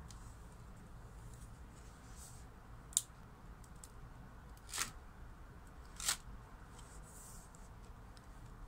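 Cardboard pull-tabs of a children's board book being slid in and out, with a sharp click and two short scrapes, over faint handling of the stiff pages.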